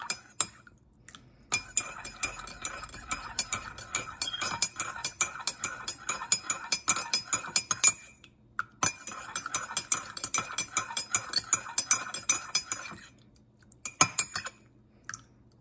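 Metal spoon stirring liquid in a ceramic mug, clinking rapidly and steadily against the sides. The stirring runs in two long spells with a short pause about halfway, then a couple of taps near the end.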